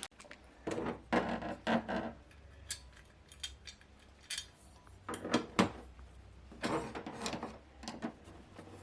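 Objects being handled, with scattered sharp clinks and knocks and some rubbing, several in quick succession around the middle.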